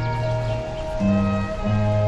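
Background music: low held notes shifting every half second to a second under steady higher sustained tones.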